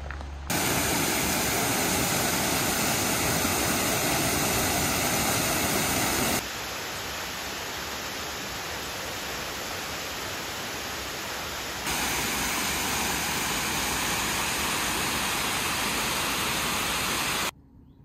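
Steady rush of water falling at the Giessbach Falls, in three takes joined by abrupt cuts. The first and last takes are loud, the middle one quieter for about five seconds, and the sound stops suddenly near the end.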